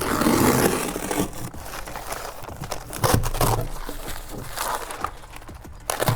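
Synthetic roofing underlayment rustling and crinkling as the sheet is handled and laid flat on the deck, with a few dull knocks.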